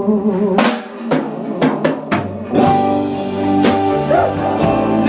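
Live rock band with electric guitar and drums playing: the sung line stops about half a second in, then a run of sharp snare and kick drum hits, and about two seconds in the band comes back in on held chords under the drums.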